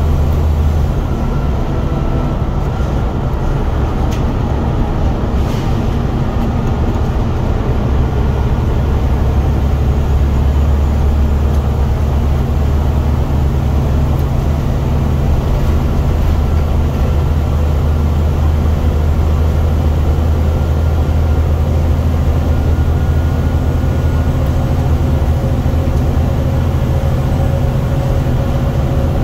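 Scania single-deck bus's diesel engine running steadily under way, a loud low drone heard inside the passenger cabin from the back seats.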